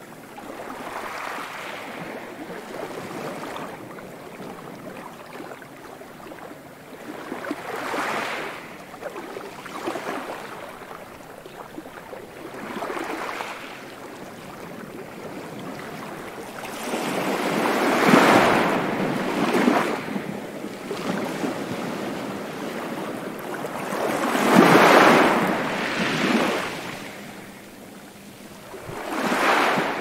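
Sea waves breaking and washing up a beach, a rushing surf that swells and fades every few seconds. The two biggest surges come a little past halfway and near the end.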